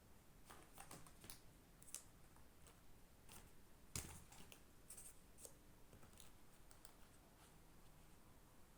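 Slime being squished and stretched by hand: faint, scattered sticky clicks and pops, the loudest about four seconds in.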